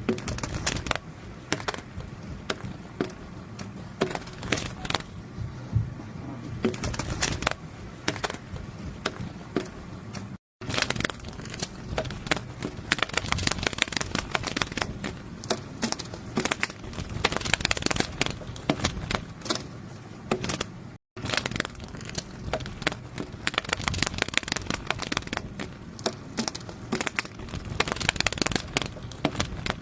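Butterfly wings fluttering, as a sound effect: a rapid, irregular run of papery clicks and crackles that cuts out briefly twice.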